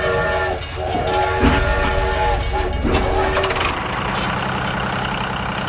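Toy train's horn sounding in two long blasts, the second a couple of seconds long, over a low steady engine-like rumble that carries on after the horn stops.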